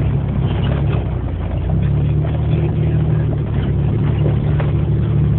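Steady low engine drone of a motor vehicle, easing briefly about a second in before returning.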